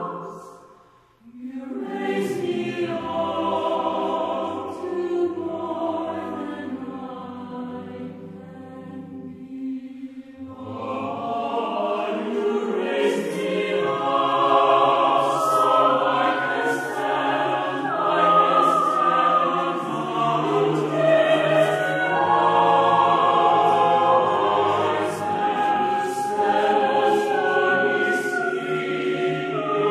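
Background choral music: a choir singing held, slow-moving lines. It drops almost to silence about a second in, comes back softly, and grows fuller and louder from about eleven seconds.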